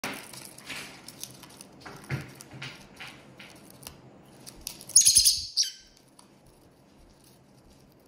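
A black-masked lovebird shredding newspaper with its beak: a run of short paper crinkles and tears. About five seconds in comes a loud, high-pitched lovebird chirp that falls in pitch at its tail.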